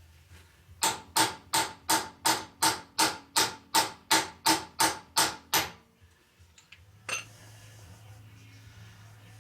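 A hammer tapping a new rear axle shaft seal into the axle housing of a 2006 Mercury Grand Marquis. It strikes a steady run of about fourteen sharp metallic taps, about three a second, each with a brief ring, then one lighter knock a second or so later.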